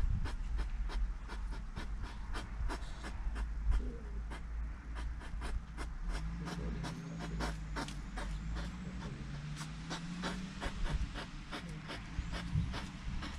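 Hedgehogs crunching sunflower seeds: rapid, irregular small clicks, several a second. A faint low drone comes in around the middle.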